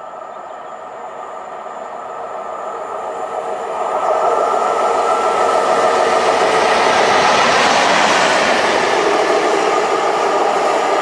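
A Class 90 electric locomotive approaching and running through at speed. Its running and wheel noise grows over the first four seconds, then stays loud and steady as it passes.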